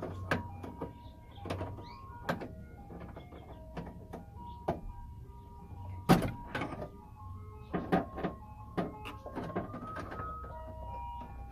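Irregular clicks and knocks of metal and plastic inside a car door as the door handle's linkage rod is pushed and pried out of its plastic clip, with one sharper knock about six seconds in. A simple chiming melody of single notes plays in the background.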